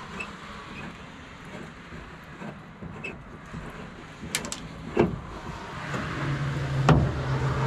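A few sharp metal clanks, then about six seconds in a small electric motor starts a steady hum: a cordless power tool running on the truck bed's bolts.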